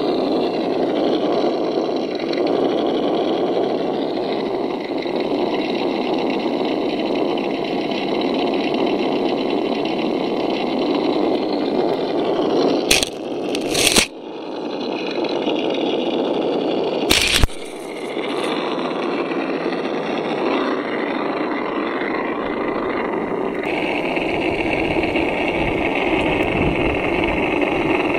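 Radio-controlled crawler truck's electric motor and gears whining steadily as it crawls over loose dirt, with three sharp knocks about halfway through as its tyres strike the camera.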